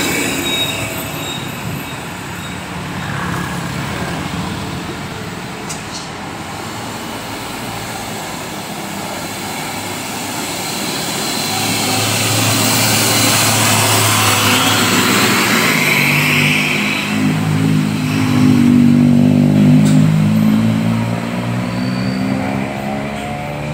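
Road traffic passing close by: heavy trucks and cars going past one after another, engines running over steady tyre noise. It grows louder in the second half as truck engines pass close, their pitch rising and falling.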